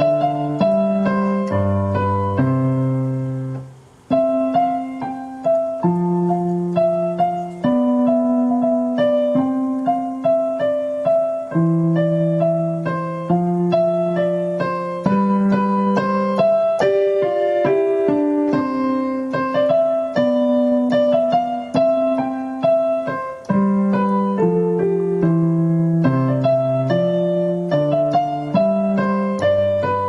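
Piano music: a melody over held chords, with a short pause about four seconds in.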